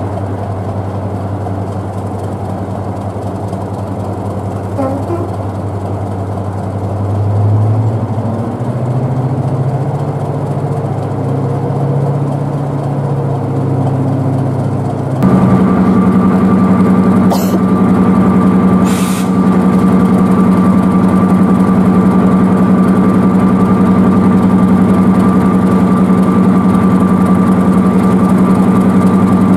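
Class 31 diesel locomotive's English Electric engine running just after a cold start. Its note wavers and rises a little about seven seconds in. About halfway through it suddenly becomes louder and steadier, with a thin high whine over the engine note.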